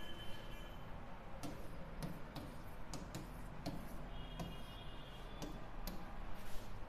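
Writing on a board: the tip taps and scrapes as letters and underlines are drawn, giving irregular light ticks, with a faint high squeak a little after four seconds in.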